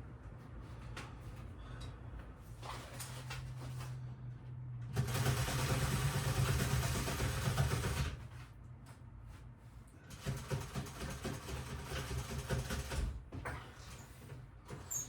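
Upholstery sewing machine stitching in two bursts of about three seconds each, with its motor humming steadily in between.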